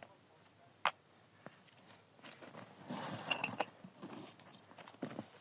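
A few sharp knocks spaced out, with a louder stretch of rustling noise about two and a half to three and a half seconds in.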